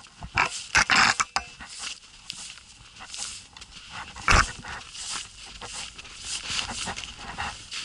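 Footsteps wading through deep fresh snow: an irregular run of crunches and swishes with the rustle of snow pants, the loudest step about four seconds in.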